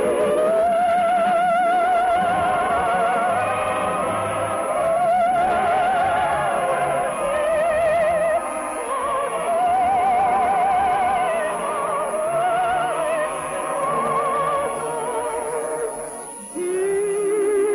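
Operetta singing in a high voice with a wide vibrato over orchestral accompaniment. The line moves in long held notes, and near the end it drops to a lower sustained note.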